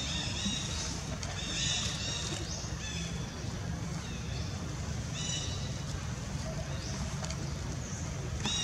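Short, high-pitched animal calls, each under half a second and coming irregularly every second or two, over a steady low rumble.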